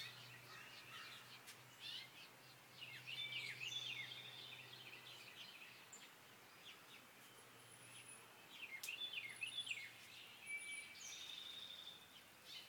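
Small birds chirping faintly: quick runs of short, falling notes, in two bouts a few seconds apart.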